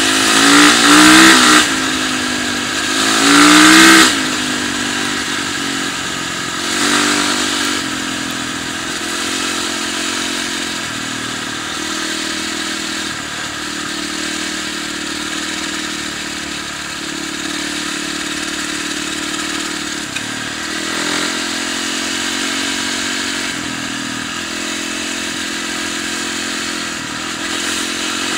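Yamaha dirt bike engine revving hard twice in the first few seconds, its pitch climbing with each surge, then running at steadier, lighter throttle with small rises and falls as the bike is ridden on ice.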